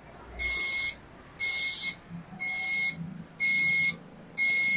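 Epson LQ-2190 dot-matrix printer sounding its error alarm at power-on: five loud, even beeps, each about half a second long, about one a second. The print head does not move at all, a fault that can come from a head or paper sensor, a jammed mechanism or carriage, a broken head cable, or a stuck carriage or paper-feed motor.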